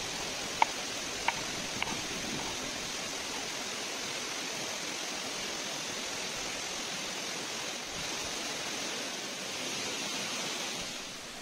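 Steady rushing of a small waterfall and stream, with three sharp taps of a chef's knife cutting through an orange onto a wooden cutting board in the first two seconds.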